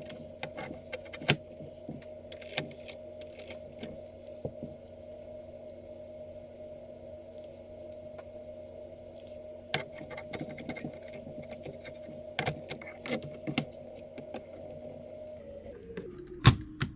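Small metal clock parts clicking and rattling as a fusee clock movement is handled during reassembly, with a sharp knock near the end. Under it runs a steady hum that slides down in pitch and stops shortly before the knock.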